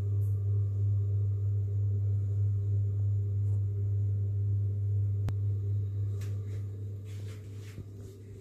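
Steady low mechanical hum, such as room ventilation gives, that fades over the last couple of seconds. A single sharp click about five seconds in and a few soft rustles near the end.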